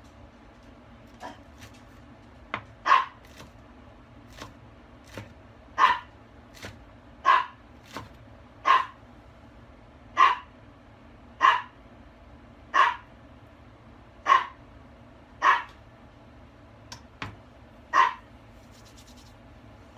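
A dog barking over and over, a single bark about every second and a half, with light knife taps on a wooden cutting board between the barks.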